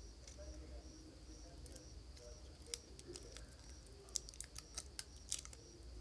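Light clicks and taps from fingers handling a phone battery pack and small parts, mostly in the second half. Behind them an insect chirps in a steady, even rhythm, about two chirps a second.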